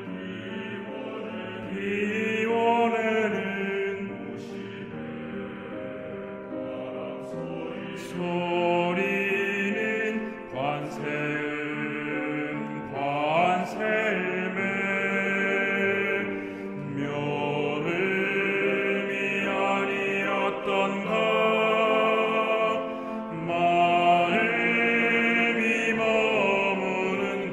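Male vocal ensemble singing a Korean Buddhist hymn in several voices at once, the lines held and swelling with vibrato.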